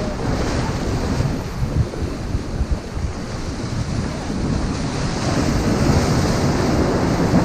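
Ocean surf breaking and washing over rocks along the shore, a steady roar that builds louder over the second half, with wind buffeting the microphone.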